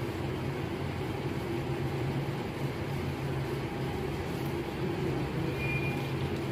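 Steady low machine hum with a hiss over it, and a brief high tone near the end.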